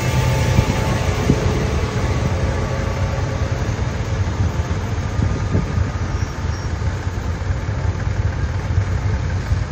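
Large modern farm tractor's diesel engine running close by, a steady low rumble.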